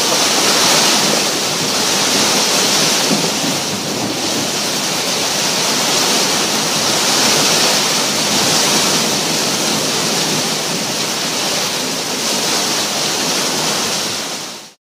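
Heavy storm rain pouring, a dense steady hiss that swells and eases every few seconds, cutting off abruptly at the end.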